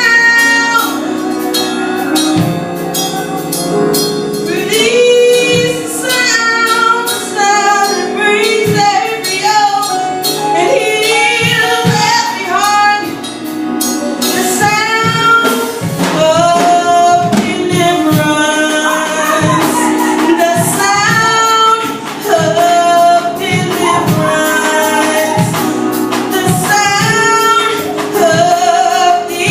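Gospel worship music: a woman's voice singing a melody over instruments, with percussion keeping a beat.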